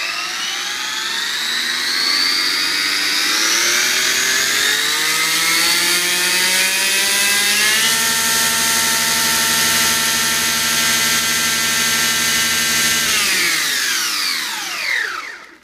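Traxxas Slash 4x4 RC truck's Castle Mamba Monster brushless motor and drivetrain run up to full throttle, spinning foam tires on 3D-printed rims. The whine climbs in pitch for about eight seconds, holds steady, then winds down and stops over the last two seconds.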